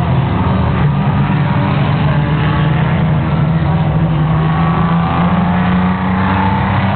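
Race car engines running on a dirt circuit: a steady drone of several engines, with one revving up through the middle.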